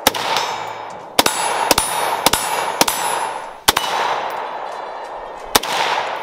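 An FN SCAR 16S 5.56 semi-automatic rifle firing about seven shots at an uneven pace, from about half a second to two seconds apart. Each shot is followed by a long ringing echo.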